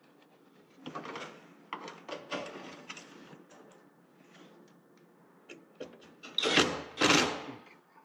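Cordless drill driving a screw into a sheet-metal cabinet in short bursts, loudest twice near the end, with clatter from handling between.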